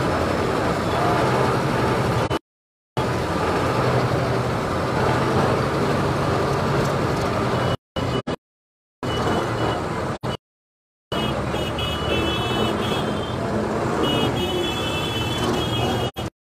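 Tractor's diesel engine running close by amid a crowd of people. The sound cuts out to silence four times, briefly each time, and short high-pitched tones come and go in the second half.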